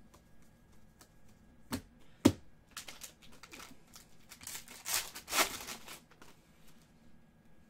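Two sharp taps as a stack of trading cards is handled, then the foil wrapper of a 2019-20 Donruss basketball card pack being torn open and crinkled as the cards are slid out.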